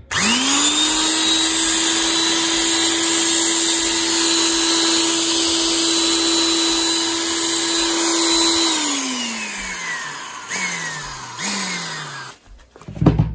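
Restored 1958 Black & Decker single-speed electric drill on a test run after reassembly: switched on, it spins up to a steady whine for about eight seconds, then is switched off and winds down. It is blipped on briefly twice, each time winding down again, and a thump comes near the end.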